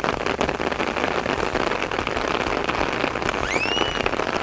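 Heavy rain falling steadily, a dense even hiss of drops. About three and a half seconds in, a short whistle rises in pitch and then levels off.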